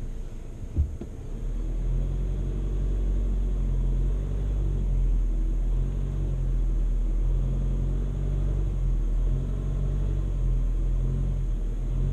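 Volkswagen Amarok's 2.0 BiTDI twin-turbo four-cylinder diesel running at low, steady revs with a deep drone. A single short knock just under a second in.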